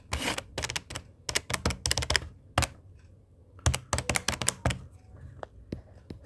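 Keys being tapped in quick runs of clicks: a long run of about two and a half seconds, a pause, then a shorter run near the middle and a few single taps. A multiplication is being keyed in.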